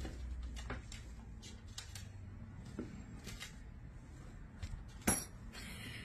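A white cockatoo moving about on the edge of an open drawer: scattered light taps and clicks, with one sharper knock about five seconds in.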